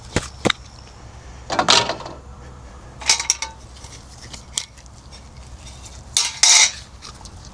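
Hard objects clinking and knocking as they are handled, a few sharp clicks with two louder, longer clattering bursts, about two seconds in and near the end.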